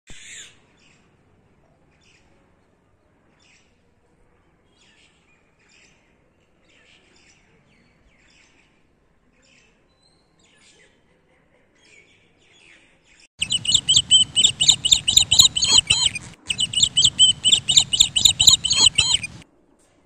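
Birds chirping: scattered faint chirps at first, then, about two-thirds of the way in, a loud run of rapid, high chirps. The run starts and stops abruptly and breaks off briefly in the middle.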